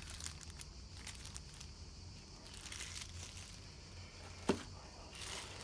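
Clear plastic parts bags crinkling and rustling as they are handled, with scattered small ticks and one sharper click about four and a half seconds in.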